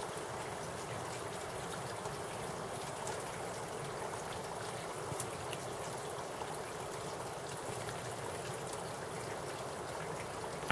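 Spring water flowing and trickling steadily, a constant rushing sound that cuts off abruptly at the end.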